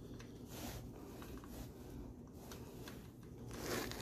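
Faint handling noise of a Torx bit and extension being turned by hand to back a bolt out of the oil filter adapter housing, with soft scraping and rustling. A slightly louder scrape comes near the end.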